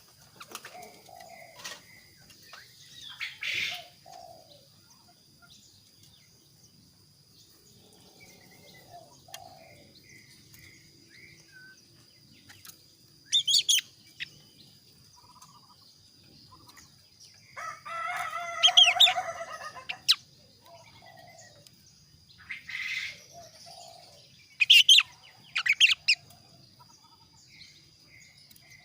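A male kaso-kaso bird calling in short, sharp bursts spaced several seconds apart, with a longer call of a few seconds near the middle. A faint steady high whine runs underneath.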